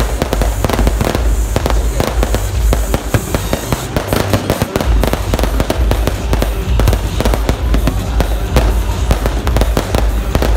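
Fireworks display: a dense barrage of aerial shells bursting and crackling in quick succession, with music playing underneath.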